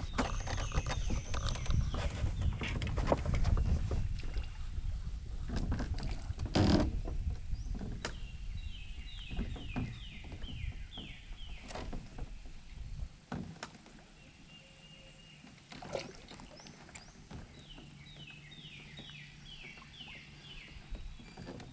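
Knocks, bumps and water sloshing around a small fishing boat as the line is worked free. Later a bird sings two runs of about six quick, falling chirps several seconds apart.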